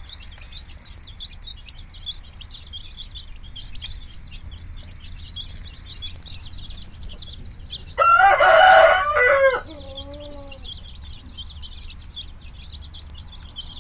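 Country chicks peeping continuously in short, high chirps. About eight seconds in a rooster crows once, loudly, for about a second and a half, trailing off in a few fainter falling notes.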